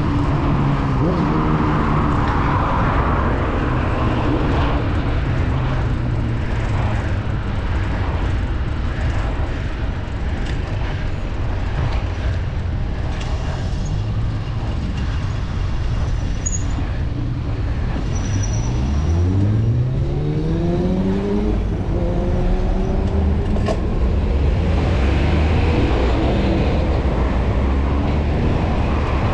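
Steady wind rush on the microphone of a bicycle rider's camera, mixed with the noise of nearby road traffic. About two-thirds of the way through, a motor vehicle's engine speeds up close by, its pitch rising over a few seconds.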